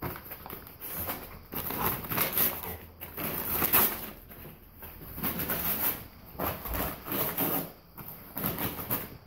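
Brown packing paper crinkling and rustling in irregular bursts as a golden retriever tramples, paws and burrows into the shredded pile.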